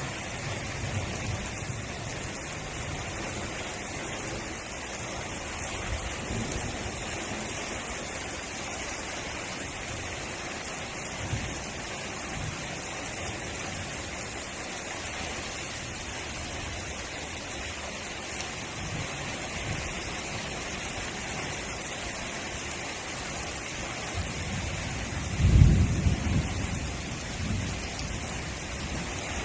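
Steady rain falling, with a loud low rumble of thunder near the end that breaks out suddenly and dies away over a few seconds.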